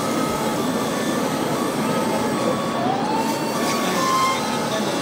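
Steady din of a busy exhibition hall, with a siren-like tone that glides up about halfway through and a few short steady electronic tones near the end.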